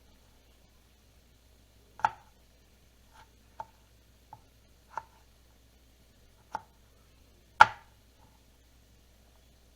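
A knife chopping on a cutting board: about seven separate, unevenly spaced chops, the loudest about three-quarters of the way through.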